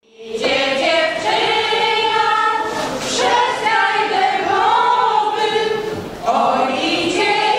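A women's folk vocal group singing a cappella, holding long notes in phrases, with short breaks between phrases about three and six seconds in.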